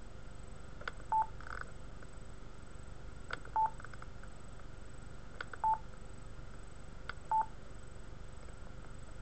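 Yaesu System Fusion mobile radio being worked by its dial knob to enter letters on its on-screen keyboard: four times a short click followed by a brief beep from the radio, each confirming one letter, about two seconds apart.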